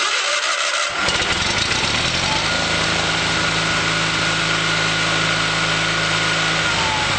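A 20 HP Onan twin-cylinder engine on a 1986 Craftsman III lawn tractor catches about a second in, then runs steadily.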